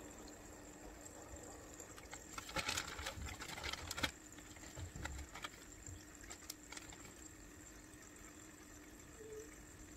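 Faint splashing and clicking from hands working in aquarium water. A cluster of it comes a couple of seconds in, ending in a sharper click, and a few scattered clicks follow.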